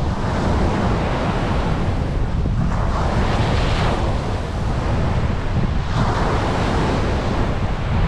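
Ocean surf breaking and washing up the beach, swelling and easing about three times, over a steady low rumble of wind on the microphone.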